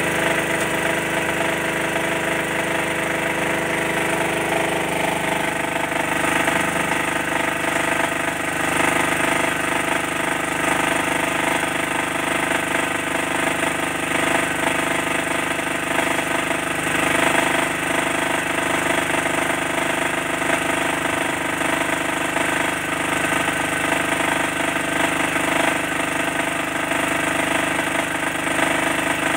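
Honda Wolf SF 2900DXE 2200-watt petrol generator running steadily under a heavy electrical load, drawing about 10 amps at 226 volts, near its rated output. Its engine note shifts slightly about five seconds in as the load comes on, then holds steady.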